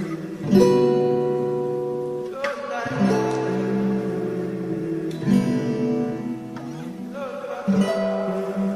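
Music: acoustic guitar chords struck and left to ring, a new chord about every two and a half seconds, four in all, with slides between some of them.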